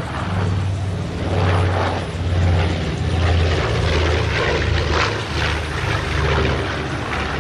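North American B-25 Mitchell's two Wright R-2600 radial engines and propellers, a steady low drone as the bomber flies past overhead, swelling slightly now and then.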